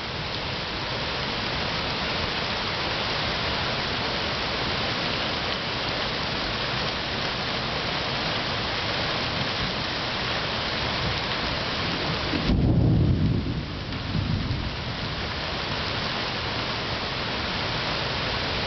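Heavy rain pouring steadily, a dense hiss of rain on leaves and ground. About twelve seconds in, a sudden deep rumble of thunder swells up for about two seconds, the loudest moment, before the rain alone carries on.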